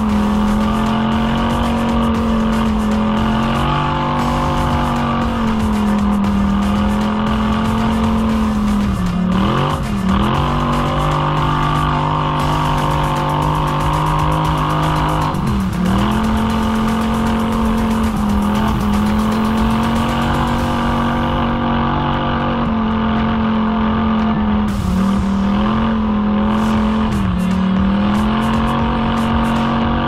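ATV engine running at a steady, high throttle, its pitch dipping briefly and coming back up several times as the throttle is eased off and reopened.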